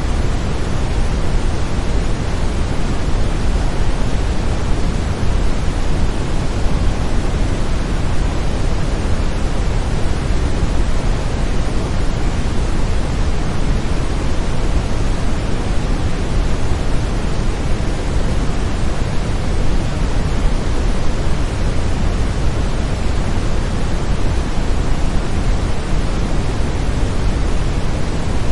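Steady brown noise: an even, deep rushing hiss that does not change.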